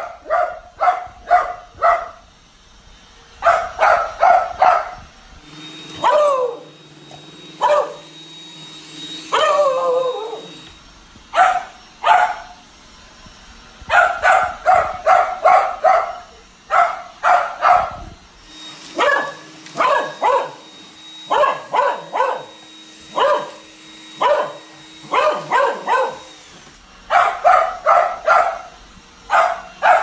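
A dog barking repeatedly at a running Roomba robot vacuum, in quick runs of sharp barks broken by a few drawn-out whining calls that fall in pitch. A steady motor hum from the robot vacuum comes and goes under the barking.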